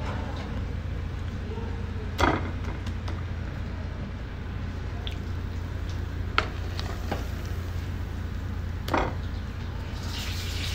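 Steady low hum with a handful of light knocks and clicks scattered through it, the loudest about two seconds in.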